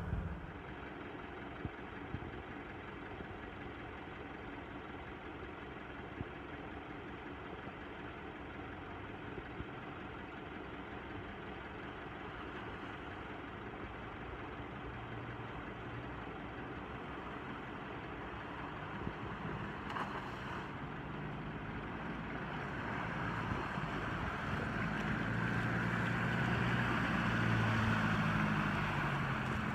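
An engine running steadily. It gets louder in the last third, with its low hum rising to the front.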